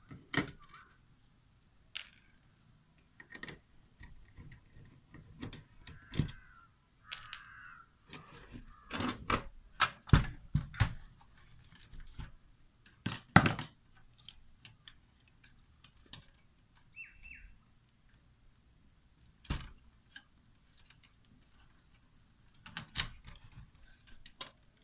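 Scattered clicks, knocks and light rattles of a cassette deck's screws and sheet-metal case being handled as the deck is taken apart. The loudest knocks come in clusters about ten and thirteen seconds in.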